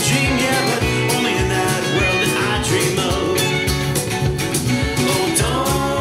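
A song with guitar and a steady beat played loud through a portable Bluetooth party speaker, heard through a microphone in the room.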